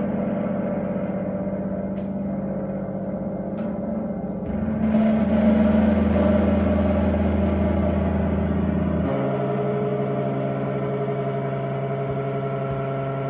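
Sustained, droning chords played through effects: long held notes that shift to a new chord about four and a half seconds in, a little louder, and again about nine seconds in, as the song's closing sound rings out.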